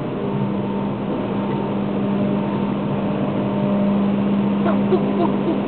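Steady drone of a car creeping forward through a ferry's enclosed car deck, heard from inside the car: an even hum with one constant low tone, and a few faint squeaks near the end.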